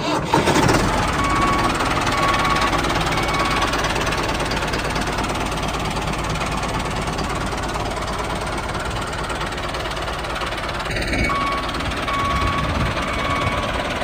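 Heavy vehicle engine running steadily, with a short high beep repeating about once a second, like a reversing alarm, for a few seconds near the start and again near the end.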